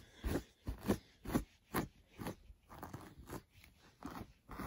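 Small plastic doll hairbrush dragging through a doll's tangled hair in quick, repeated strokes, about two a second, each a short scratchy rasp.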